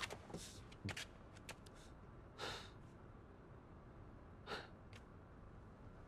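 A quiet room with a few faint, short rustling noises: two soft rushes about two seconds apart and a couple of light clicks.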